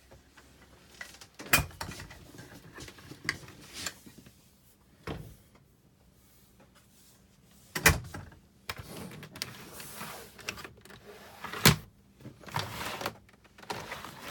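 Irregular sharp knocks and clicks with rustling between them, from doors and fittings being handled inside a 1977 Airstream travel trailer; the loudest knocks come about eight and twelve seconds in.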